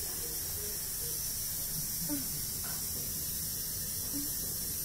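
Steady hiss of background noise with a low rumble underneath, and a few faint distant voice fragments about two and four seconds in.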